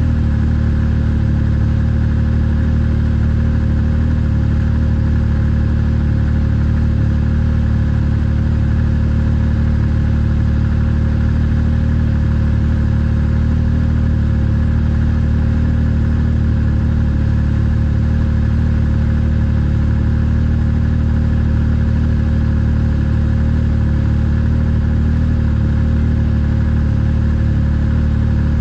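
A trail vehicle's engine running at a steady cruising speed, heard from on board, with a constant low drone and no change in pitch.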